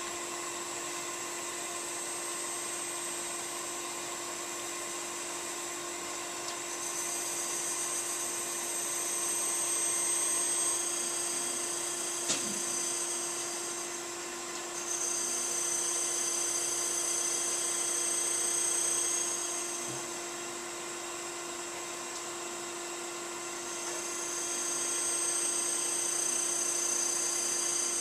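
Okamoto 1224-DX surface grinder running with a steady hum while roto-grinding a part on an air-bearing spindle. Three times the grinding wheel comes into contact for several seconds, adding a high-pitched hiss, as it takes light cuts under automatic down-feed of 50 millionths per pass. There is a single sharp click about twelve seconds in.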